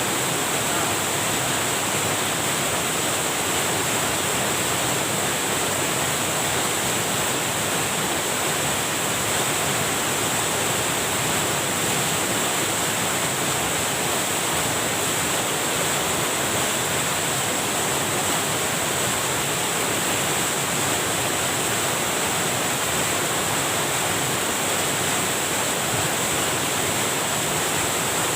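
Water rushing steadily over a small weir, with a constant, even roar.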